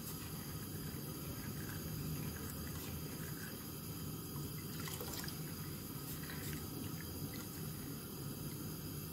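Milk being stirred with a plastic ladle in a stainless steel pot: soft liquid swishing with a few light knocks of the ladle against the pot, over a steady low hiss.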